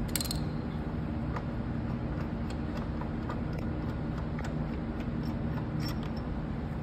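Light, irregular metallic clicks of a hand tool backing the Allen bolts out of a rear-main-seal installer tool on the crankshaft, with a sharp clink of metal right at the start, over a steady low hum.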